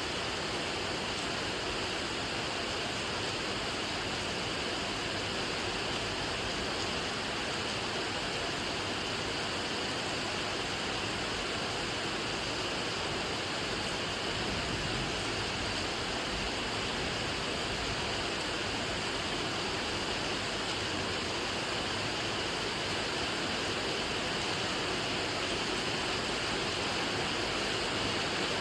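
Steady rain falling, an even hiss without separate drops standing out.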